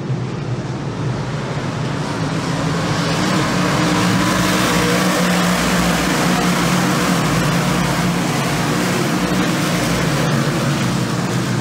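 A pack of dirt modified race cars running past on the track. Their V8 engines make a loud, continuous drone that swells about three seconds in and stays loud.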